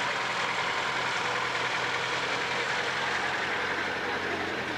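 Car engine idling steadily, under an even background hiss.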